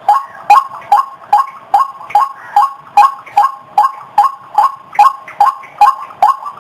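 White-breasted waterhen (ruak-ruak) calling: a steady run of loud, sharp "wak" notes, about two and a half a second.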